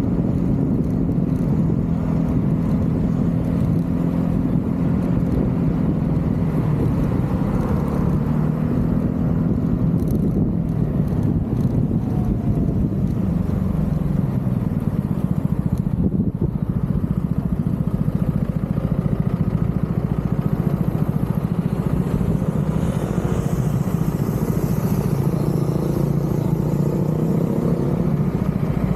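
Vespa GTV 300 scooter's single-cylinder four-stroke engine running under way, with a steady rush of wind; the engine note shifts as the speed changes.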